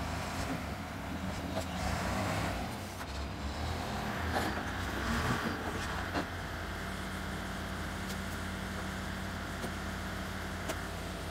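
1962 Volvo BM backloader's diesel engine running as the loader drags and drops a load of logs, with a few sharp knocks of wood, then settling to a steady idle a little past halfway.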